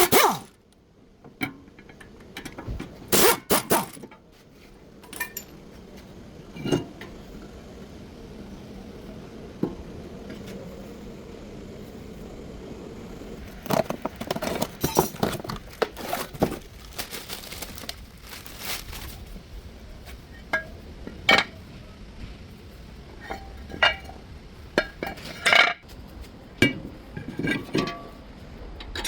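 Hand tools and metal parts clinking and knocking in scattered clusters, some strikes ringing briefly, as brake parts are worked on.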